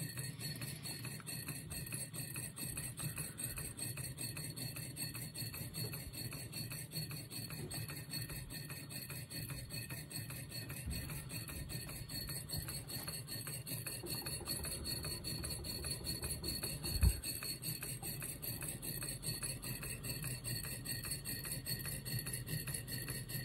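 A 1960s Popular Mechanics Stirling hot-air engine running steadily, its flywheel and connecting rods turning with a fast, even ticking. A single sharp knock about two-thirds of the way through.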